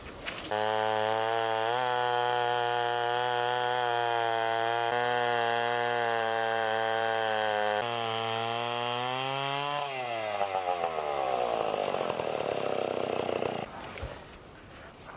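Stihl 090 chainsaw powerhead on an Alaskan chainsaw mill, running at a steady high speed while milling a walnut log. About ten seconds in its pitch falls as the engine slows, and the sound drops away near the end.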